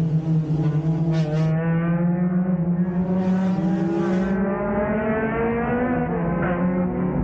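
Four-cylinder stock car engine running hard at high revs, heard from inside the car. The note holds steady, with rising tones through the middle as the revs climb.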